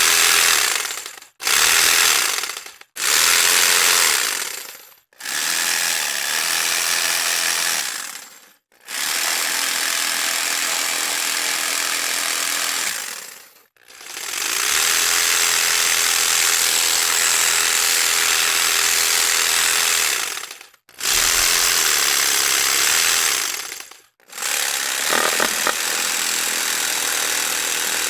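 Electric jigsaw running in about eight separate bursts, each lasting a few seconds, with a short silence between bursts as it is switched off and on again.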